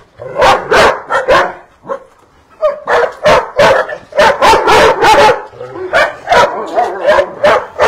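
Several dogs barking loudly and repeatedly: a few barks, a short lull about two seconds in, then a fast run of barks at about three a second.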